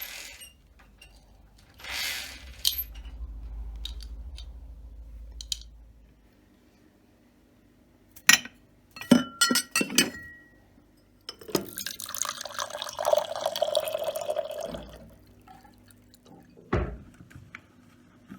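Kitchen handling sounds: glassware clinking and water being poured, with a run of sharp clicks and knocks about halfway through and a longer stretch of running liquid after it.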